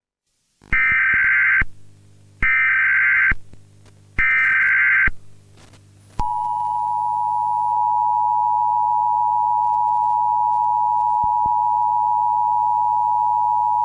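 Emergency Alert System tones: three one-second bursts of the screechy SAME digital header data, then the EAS two-tone attention signal, a steady dual tone that starts about six seconds in and holds.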